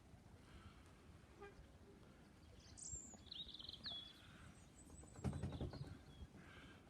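Quiet outdoor background with a small bird chirping briefly, a quick high trill about three seconds in, and a short low rumble a little after five seconds.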